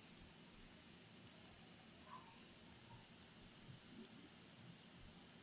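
Faint computer mouse clicks over near-silent room tone: five short clicks, two of them in quick succession about a second in.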